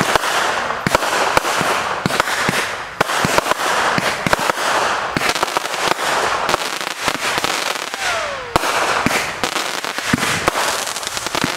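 Consumer fireworks going off in quick succession: a dense crackle of many sharp pops and bangs over a constant hiss. About eight seconds in, a short whistle falls in pitch.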